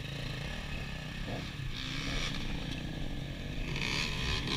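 Dirt bike engines: a trail bike idling, with another trail bike's engine drawing closer and getting louder through the second half.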